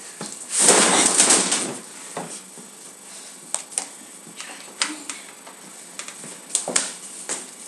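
Play-fight scuffle on a hard basement floor: a loud noisy clatter about half a second in, lasting about a second, then scattered light knocks and footsteps.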